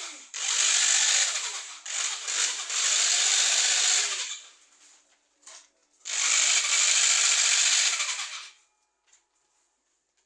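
Electric drill run in bursts: two long runs of about four and three seconds, with a short blip between them, then it stops.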